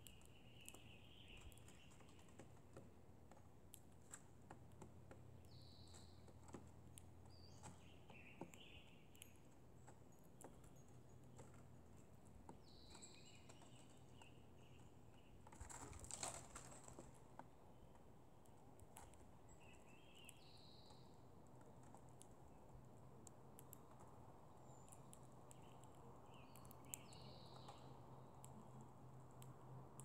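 Faint small ticks and taps of birds pecking seed on a wooden deck rail, with a few short, high, distant bird calls now and then and one brief louder rustle about halfway through.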